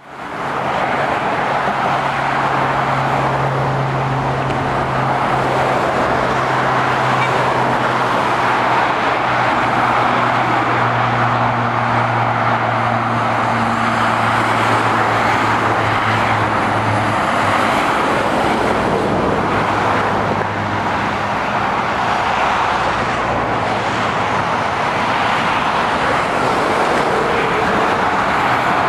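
Steady traffic noise of cars and articulated lorries passing at speed on a dual-carriageway motorway, mostly tyre roar. A low engine drone from the lorries hums underneath and fades out a little past halfway.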